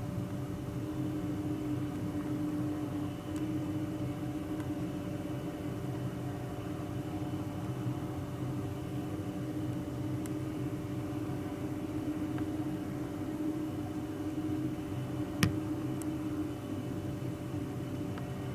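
Jet airliner engines at taxi idle: a steady drone with a low rumble and a few held tones. A single sharp click comes near the end.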